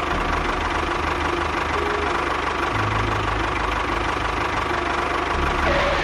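An engine running steadily, with a pulsing low note that shifts a little about halfway through.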